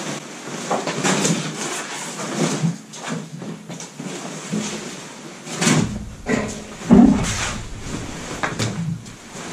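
Handling noise: rustling and knocking as fabric padding and tools are moved about, with a few heavier thumps about six to seven seconds in.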